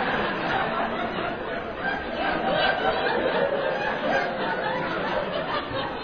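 Audience laughing and chuckling together, a continuous mix of many voices.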